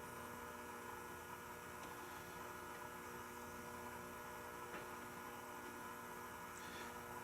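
Faint steady electrical hum over quiet room tone.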